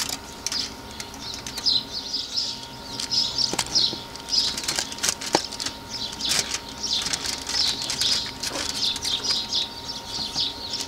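A knife carving crisp-skinned smoked spatchcock chicken on aluminium foil: scattered sharp clicks and crackles of skin and foil rustling, with birds chirping throughout.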